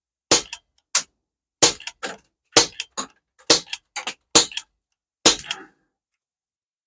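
M4A1-style BB gun firing a string of shots, about one a second, each sharp crack followed quickly by a second, softer click. The last shot, a little after five seconds, has a longer rattling tail as a reactive exploding target goes off.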